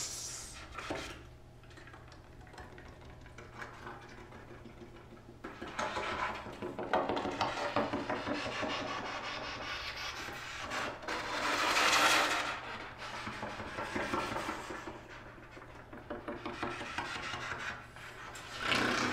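Breath blown through the tubing of a dismantled trombone whose bells are stuffed with flowers, giving a rasping, breathy air noise rather than notes. It comes in swells, the loudest about twelve seconds in.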